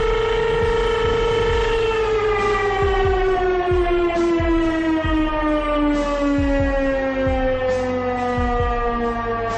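Fire station's motor-driven alarm siren, which calls the volunteer firefighters out, sounding a steady wail and then, about two seconds in, starting to wind down, its pitch falling slowly and steadily.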